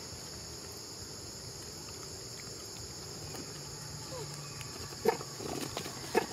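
A steady high drone of insects, with a few short squeaky calls from the feeding macaques. The sharpest calls come about five and six seconds in.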